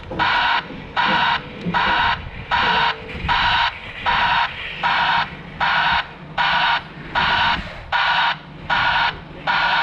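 Reversing alarm on a Grove mobile crane beeping steadily, about four beeps every three seconds, over the low running of the crane's engine.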